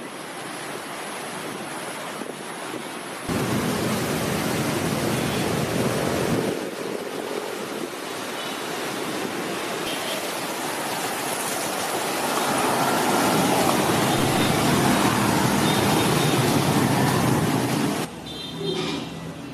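Outdoor city ambience: a steady wash of traffic noise that gets louder about three seconds in, then drops to a quieter indoor background near the end.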